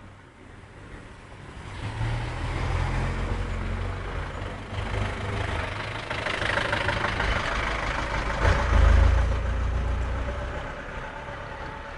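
A vehicle engine running with a deep rumble, growing louder about two seconds in, peaking a little before the end, then fading away.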